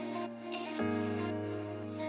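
Soft, gentle background music of sustained chords, with a new chord coming in a little under a second in.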